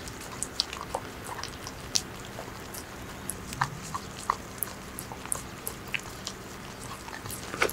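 Small dog licking and smacking at a purée treat squeezed from a tube held by hand: a string of short, irregular wet clicks.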